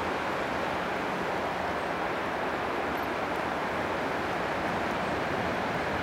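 Steady running noise of an approaching 2ES4K electric locomotive and its train of tank cars on the rails, an even hiss with a low hum underneath.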